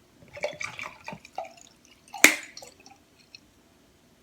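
Water moving in a glass mason jar, with small liquid drips and clicks, then one sharp knock about halfway through, the jar handled or set down on the table.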